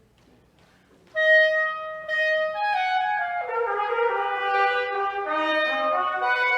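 Trumpet entering about a second in with a loud held note, then a line of sustained notes stepping downward, overlapped by a second held wind line from about the middle, in a contemporary chamber piece for clarinet, trumpet and piano.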